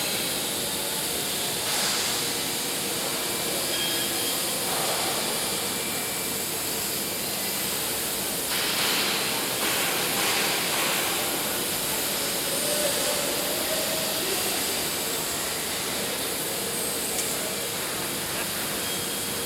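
Steady hissing noise of a running engineering drilling rig, with a brief louder rush about nine seconds in.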